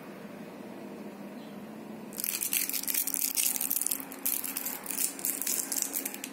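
Crinkling of a shiny candy wrapper hanging on a string. The dense, uneven crackle sets in about two seconds in and eases off near the end.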